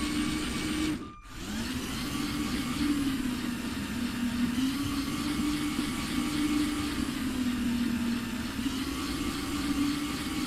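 Electric drive motor of a LEGO Technic RC car whining through its gears, the pitch rising and falling as the speed changes. About a second in it stops briefly and spins back up.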